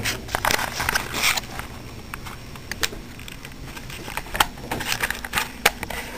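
Irregular clicks and knocks of plastic toys clattering as a toddler rummages through and empties toy buckets, a few louder knocks standing out near the end.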